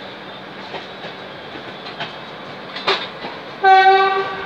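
Train running slowly with LHB coaches, wheels clicking now and then over rail joints and points over a steady rolling noise. About three and a half seconds in, a locomotive horn sounds one loud, steady note for almost a second.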